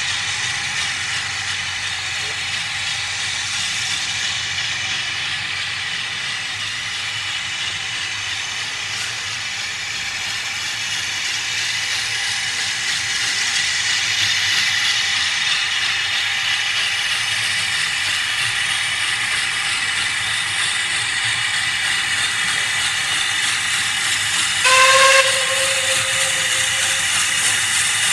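Steam locomotive letting off steam in a steady hiss that grows a little louder about halfway through, with one short toot on its steam whistle near the end.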